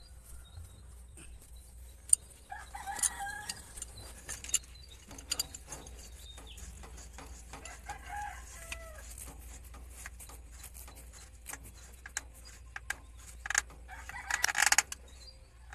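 A rooster crowing twice, with more chicken calls near the end, over scattered sharp clicks and knocks.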